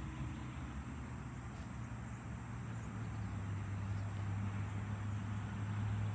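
A steady low mechanical hum, like a distant motor running, over a faint outdoor hiss.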